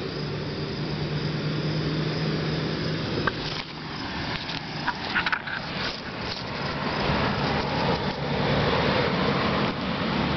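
A motor vehicle's engine running as a steady low hum over a broad rushing noise, which swells in the second half, with a few short clicks around the middle.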